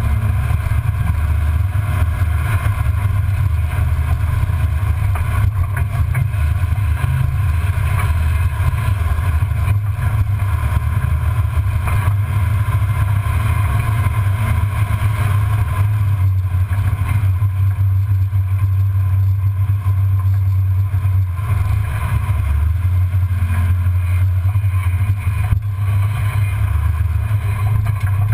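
1994 Ford Bronco driving slowly over dirt and rock, heard from beneath the truck: a steady low engine and drivetrain rumble.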